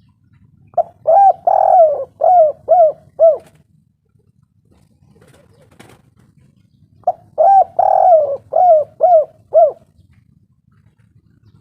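Spotted dove cooing: two identical call phrases about six seconds apart. Each phrase is a short coo, a longer drawn-out coo, then three clipped coos.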